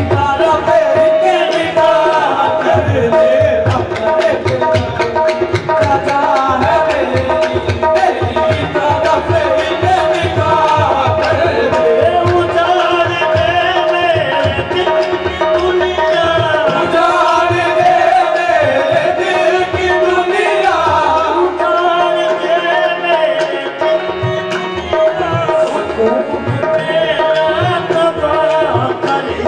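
Live qawwali: tabla playing a fast, continuous beat under sung melody lines.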